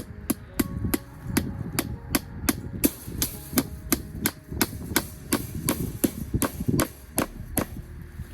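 Steady hand hammering, sharp blows about three a second.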